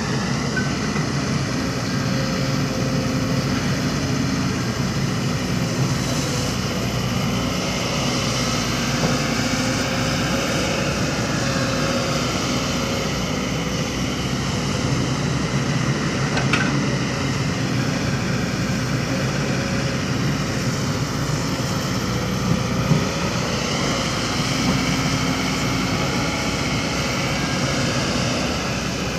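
Diesel engines of heavy construction machinery running steadily, the pitch slowly rising and falling as the machines work, with a short knock about halfway through.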